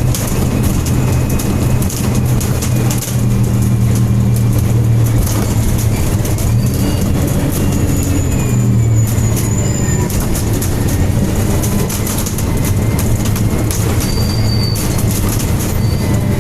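Interior of a MAN-chassis Alexander Enviro 300 single-deck bus underway: the engine and cooling fan make a steady low hum, with a running rattle and faint high whines that rise and fall in pitch.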